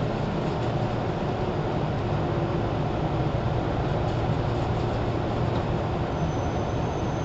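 Steady running noise inside a JR 413 series electric train's motor car (KuMoHa 413): an even rumble of the train with a constant low hum. A thin high whine joins about six seconds in.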